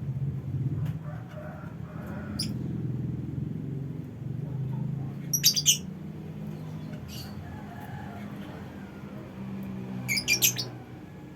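Lovebirds giving shrill, rapid chirps in two short bursts, one about halfway through and one near the end, with a few single chirps between. Underneath, a low engine rumble fades away.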